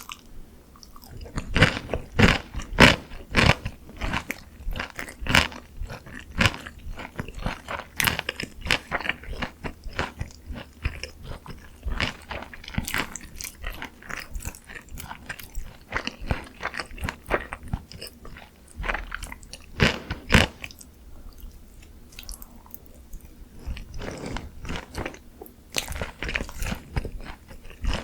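Close-miked crunching and chewing of crispy glazed Korean fried chicken (dakgangjeong): a quick run of sharp, crisp bites and chews, with one especially loud crunch about two-thirds of the way through and a quieter chewing stretch just after it.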